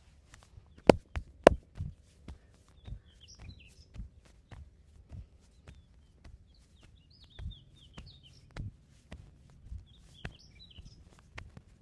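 Percussive hand massage: an irregular run of sharp slaps and pats on the body, with two much louder smacks near the start about half a second apart. Birds chirp faintly in the background.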